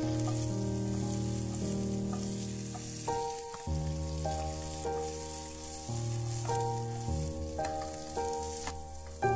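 Green bell peppers and onions sizzling in oil in a nonstick frying pan as they are tossed, under background music with sustained chords and a bass line.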